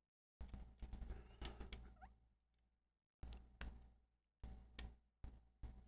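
Lock pick and tension wrench scraping and clicking in the keyway of an On Guard slider-type bicycle U-lock as the sliders are worked: about two seconds of faint scratchy clicks, then three short clusters of sharp metal clicks.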